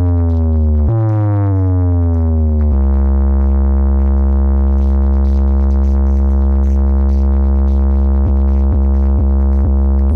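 Bass test tone played loud through a large DJ speaker stack for a sound check: a deep tone falling in pitch, restarting about a second in and falling again, then held steady, with four short breaks near the end.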